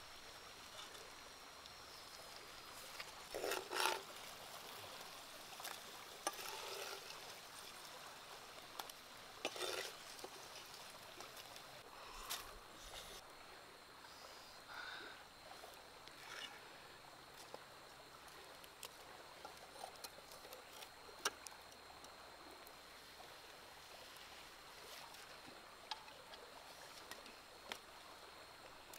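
Faint handling noises around clay cookware over a wood fire: scattered light clicks, knocks and rustles, loudest about four seconds in. A faint steady high whine sits over a quiet outdoor background.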